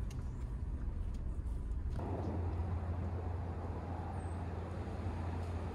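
Fifth-generation Toyota 4Runner's 4.0 L V6 running as the SUV drives slowly, a steady low hum. Tyre and road noise grows louder about two seconds in.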